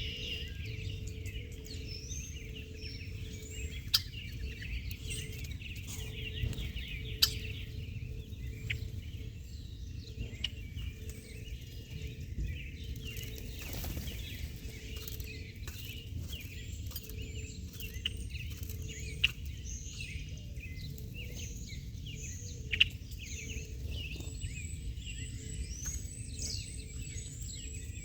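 Many small birds chirping and twittering together in a continuous chorus, with a few sharp clicks, over a steady low rumble.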